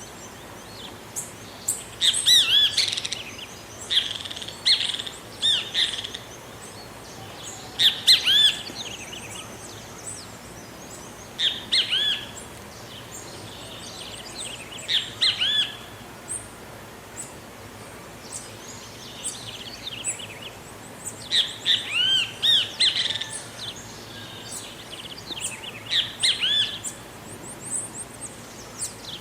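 Great kiskadee (bem-te-vi) calling: groups of loud, arching notes repeated every few seconds over a faint steady outdoor hiss.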